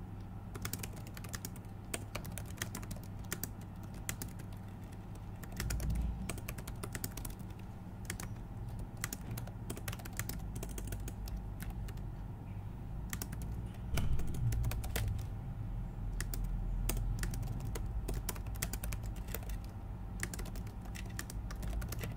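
Typing on a computer keyboard: irregular runs of key clicks with short pauses. A low hum underneath swells briefly about six seconds in and again around fourteen seconds.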